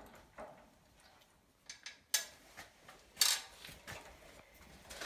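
Light metallic clicks and clinks, about half a dozen, with two louder ones around two and three seconds in, as steel steering parts are handled while the steering column's universal joint is fitted and its clamp bolt set in place.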